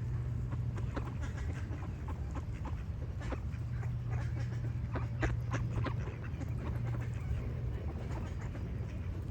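Ducks quacking in a quick irregular series of short calls, mixed with other bird calls, over a steady low hum.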